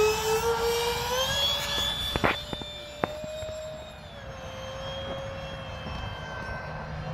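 Motor of a radio-controlled model Saab Viggen jet, its whine rising in pitch as it is hand-launched at full throttle, then settling to a steadier tone that fades as the plane flies away. Two sharp clicks are heard about two and three seconds in.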